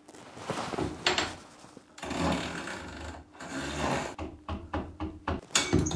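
Handling noises at a shower fitting: rubbing and scraping, then a quick run of clicks and knocks, the loudest near the end.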